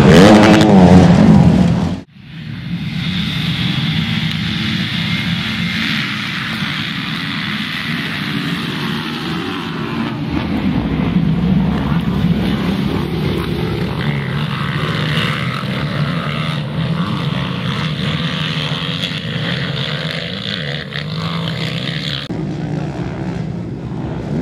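A loud two-second burst with a wavering pitch that cuts off suddenly. Then motocross motorcycle engines race on a dirt track, a steady, buzzing engine note rising and falling as the bikes accelerate and shift.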